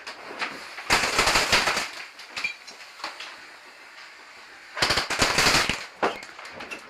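Airsoft gun firing two full-auto bursts of rapid shots, each about a second long, one about a second in and the other near five seconds in.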